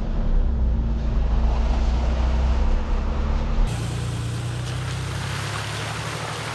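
A Jeep Gladiator EcoDiesel's 3.0-litre V6 turbodiesel, heard first from inside the cab as a steady low drone while the truck drives the trail. About three and a half seconds in, the sound switches to the outside of the truck: tyres splashing and churning through a muddy puddle over the hum of the diesel.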